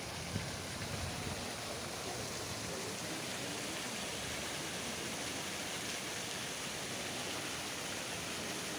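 Steady rush of splashing water.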